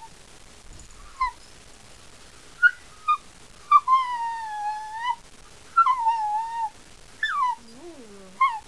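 Puppy whining and howling, from an old tape recording: a run of high-pitched yips and whines, with one long wavering whine held for over a second about four seconds in.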